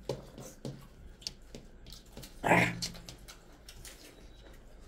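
Hand-eating sounds: fingers mashing rice and curry on steel plates, with soft clicks and chewing. About halfway through comes one short, loud vocal sound, a grunt or a bark.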